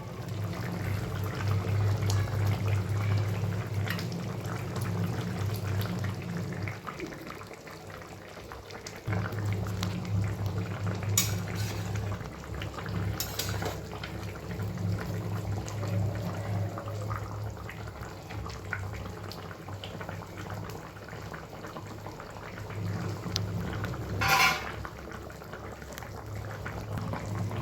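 Thin Bengali rohu fish curry with vegetables boiling in a pan, a steady low bubbling and hiss. A few short clinks sound along the way, about a third and half way in and again near the end.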